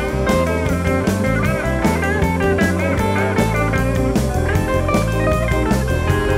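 Background music: an upbeat rock track with guitar over a steady drum beat.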